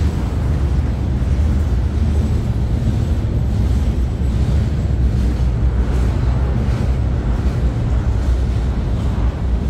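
Freight cars of a slow-moving train rolling past at close range: centerbeam flatcars and a covered hopper car, their wheels on the rails making a steady low rumble.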